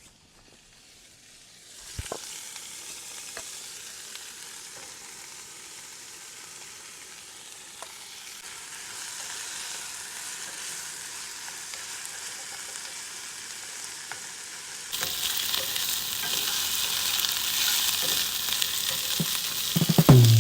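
Tofu, peppers and onions sizzling in oil in a non-stick pan on a stove, with a sharp knock about two seconds in and a few lighter clicks. The sizzle builds gradually and turns clearly louder about fifteen seconds in.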